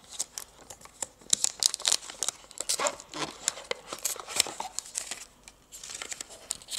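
Thin clear plastic film crinkling as it is peeled off the back of a phone, with quick irregular crackles and small handling taps. It goes quieter for a moment about five seconds in.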